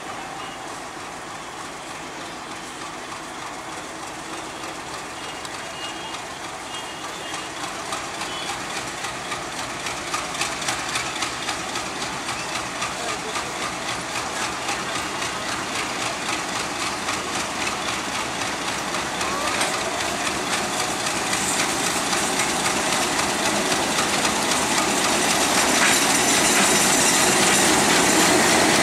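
Diesel-hauled express train running through a station without stopping. The sound grows steadily louder as the locomotive draws level, with a rapid, even clicking of wheels over the rail joints.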